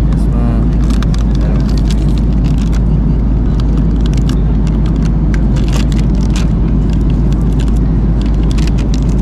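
Steady low rumble of a moving vehicle, with scattered small clicks and rattles.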